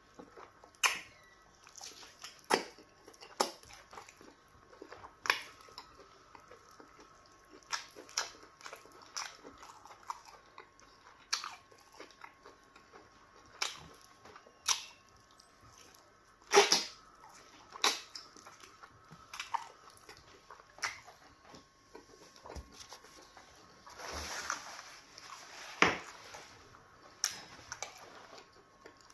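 Close-miked mouth sounds of eating by hand from a bowl of okra stew: wet lip smacks, sucking and chewing, heard as irregular sharp smacks every second or two, with a longer slurp toward the end.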